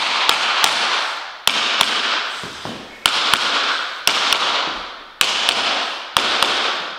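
Hammer striking a tapping block against the edge of a laminate floor plank, knocking the click joint down flush. The taps come mostly in pairs, about one pair a second, each ringing on briefly after it.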